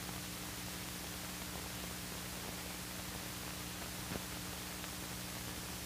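Steady hiss with a low hum, the background noise of an old film soundtrack, with one faint click about four seconds in.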